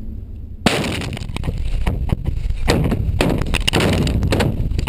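Underground mine blast: a round of explosive charges set in drill holes goes off in a preset timed sequence. A sudden bang about half a second in is followed by a rapid string of further blasts over a continuous low rumble.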